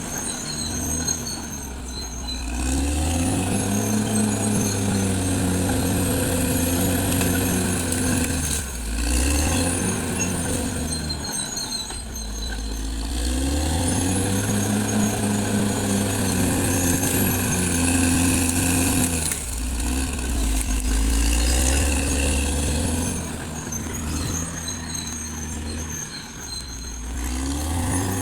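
Caterpillar D6R XL bulldozer's diesel engine working under load, its pitch climbing as it pulls hard, holding, then dropping back, about three times, with a thin high whine over it.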